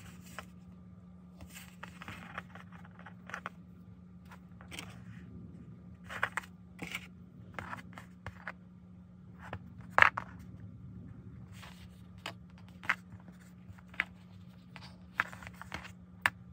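Fabric being handled and arranged on a work table: light rustling and scattered sharp clicks, the loudest about ten seconds in, over a steady low hum.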